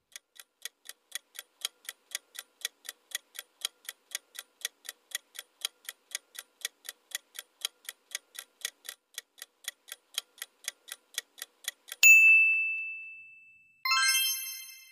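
Countdown timer sound effect: quick, even clock ticks, about four a second, run for some twelve seconds. Then a single bell-like ding sounds as time runs out, and a brighter chime of several tones follows shortly after.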